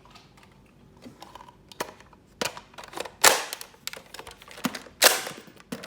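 Plastic clicking and clacking of a toy dart blaster being handled and primed, with two louder sharp bursts about three and five seconds in.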